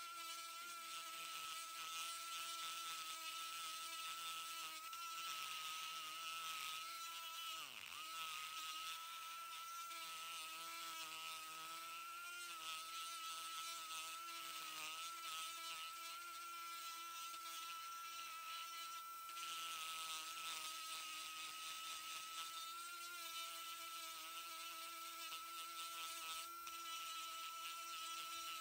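Vintage Dremel 370 rotary tool running with a ball-shaped burr, grinding into pine knot wood: a steady high whine over a rasping, fluctuating grind, its pitch dipping briefly under load about eight seconds in. The owner thinks a bearing in the tool is going out.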